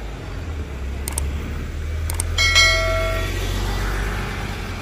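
A MAN NL323F city bus's diesel engine pulling away from a stop, its low rumble building and loudest a little past halfway. A brief ringing tone sounds about halfway through.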